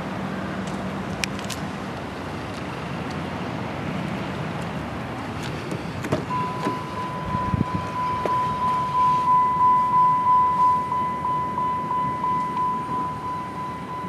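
Background noise, then a click about six seconds in, after which a steady high electronic tone starts and pulses about twice a second.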